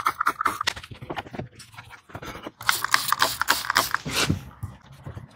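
Glass cleaner being sprayed and wiped on a Jeep's window glass: a run of short scraping, rubbing strokes, with a cluster of louder, hissing strokes in the middle.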